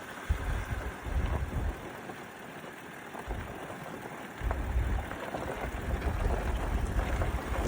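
Gusty wind buffeting the microphone in low rumbling bursts, easing for a couple of seconds in the middle before picking up again, over a steady outdoor hiss.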